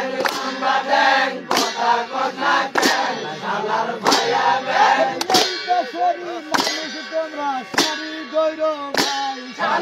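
A chorus of men chanting a song to a metallic clang struck about every second and a quarter, eight times, keeping a steady beat. In the second half the voices thin to a few wavering lines.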